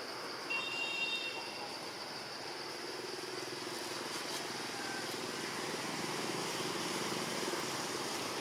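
Road traffic: a motor vehicle approaching and growing steadily louder from about three seconds in. A brief high-pitched tone sounds about half a second in.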